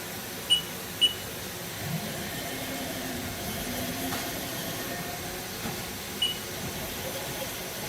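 Haas DM-2 vertical machining center moving its table through the axes: a steady mechanical whir with faint shifting tones from the axis drives. Three short high beeps sound, two in the first second and one about six seconds in.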